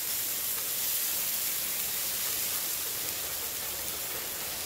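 Shredded hash browns sizzling on the hot steel flat top of a Blackstone Tailgater griddle: a steady, even hiss.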